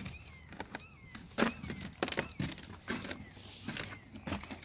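Double doodle puppy giving short high whimpers that rise and fall, mixed with knocks and bumps on wood.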